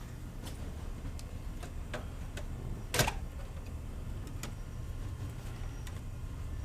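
Scattered light metallic clicks and ticks of hand tools being handled, with one sharper knock about three seconds in, over a low steady hum.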